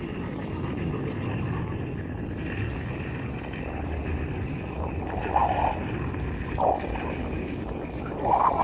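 Steady wind rush on the microphone and choppy water lapping against a small boat's hull, with a few short louder sounds about halfway through and near the end.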